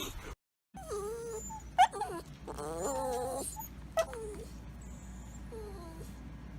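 A dog whining: about five short, falling whimpers, with a longer wavering whine about three seconds in.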